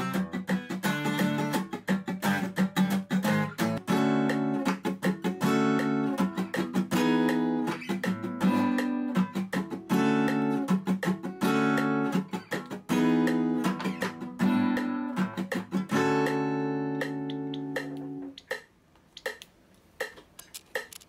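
Acoustic guitar strummed in a funk/soul cutting rhythm: chords in short rhythmic blocks with muted chopping strokes between them. Near the end the last chord rings out and fades, leaving a metronome ticking steadily about once every three quarters of a second, which is 80 beats a minute.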